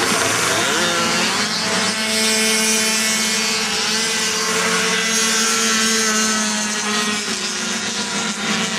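Several racing snowmobiles' two-stroke engines running at high revs as the pack goes past. The pitch climbs during the first second or so, then holds as a steady whine, dipping slightly near the end.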